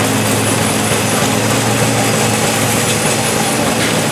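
Belt-driven antique threshing machine running steadily, an even mechanical noise over a steady low engine hum.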